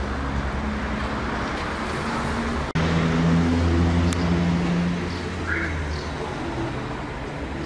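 Street traffic noise with a car engine passing, loudest from about three to five seconds in, then fading.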